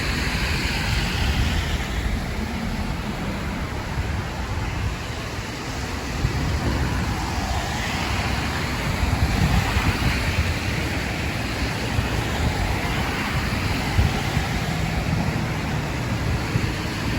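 Rushing floodwater in a rain-swollen creek: a steady rush, with a low, uneven rumble of wind on the microphone underneath.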